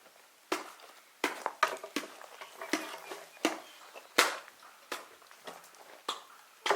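A series of about a dozen irregular sharp knocks or chops, some followed by a brief ring.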